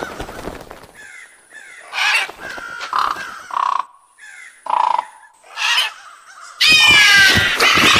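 Crows cawing: single harsh caws spaced about a second apart, then, about two-thirds of the way in, many crows cawing at once, louder and overlapping.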